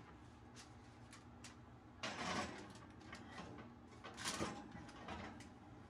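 Foil-covered glass baking dishes being slid onto a wire oven rack: two short scraping sounds, about two seconds in and again about four seconds in, with a few faint clicks between.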